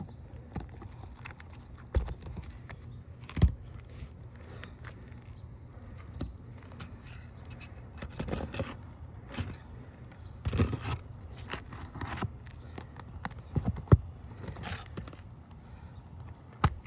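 Prying tool working nails out of brittle asphalt roof shingles: scattered sharp knocks, with stretches of scraping and rattling about halfway through.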